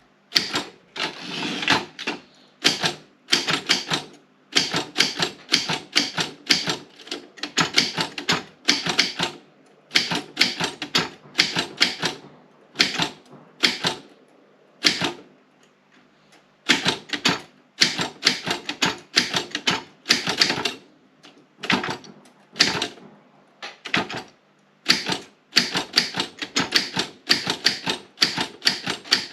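Optima M16 manual typewriter being typed on: rapid runs of key strikes clacking against the platen, broken by short pauses, with a longer pause about halfway through.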